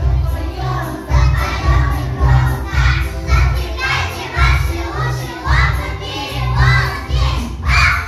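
A group of young children singing chastushki together in loud, shouted unison, over a musical accompaniment with a steady, bouncing bass beat.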